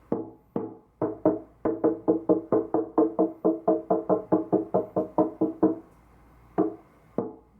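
Egmond archtop guitar, newly reassembled after repair, strummed on one chord in a quick even rhythm of about five strokes a second, then two single strums near the end. The tone is much more solid than before the repair.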